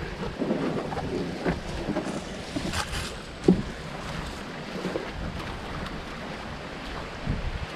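Water moving around a canoe on a shallow river as it is paddled, with a few short knocks from the paddle and hull and wind on the microphone.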